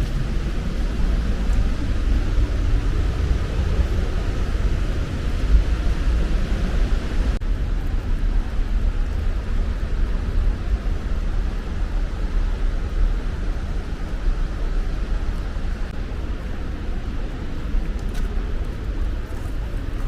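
Waterfall rushing: a steady, heavy roar with a deep low rumble.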